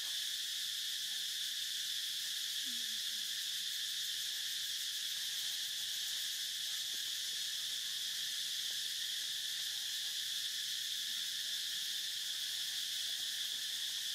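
Steady chorus of insects: an even, high-pitched drone with no breaks or change in level.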